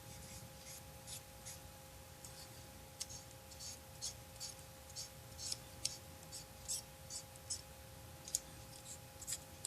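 Faint, irregular scratching strokes, roughly two a second, of a small tool rubbing oil paint across a plastic scale model. A steady faint electrical hum sits underneath.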